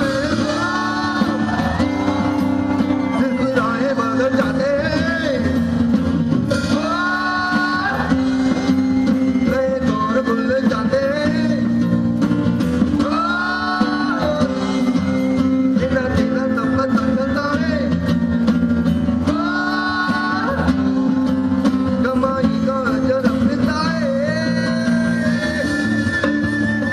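Male vocalist singing long, held phrases into a microphone over a live band's accompaniment.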